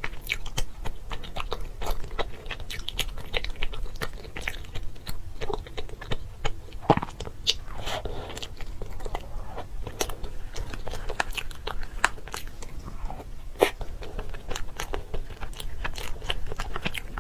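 Crunchy food being bitten and chewed close to the microphone: a dense, irregular run of sharp crackling crunches that continues without pause.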